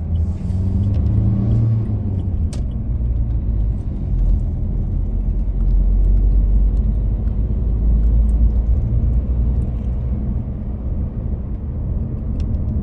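A car driving on an open road, heard from inside the cabin: a steady low rumble of engine and tyres. The sound swells in the first two seconds as an oncoming lorry passes.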